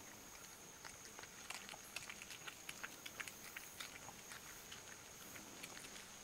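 Ocelot biting and chewing at an eggshell: faint, irregular small cracks and clicks.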